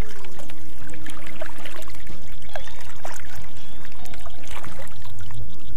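Double-bladed kayak paddle dipping into pond water stroke after stroke, with water splashing and trickling off the blades in irregular drips.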